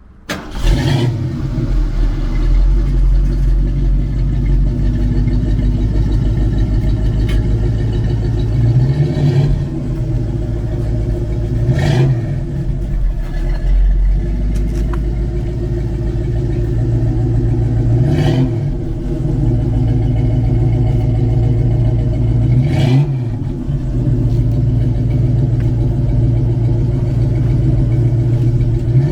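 Stock Ford 289 small-block V8 in a classic Mustang, breathing through a new Flowmaster-style 2-inch chamber exhaust, idling with a deep, steady burble. It is blipped on the throttle four times, each rev rising and falling back to idle within about a second.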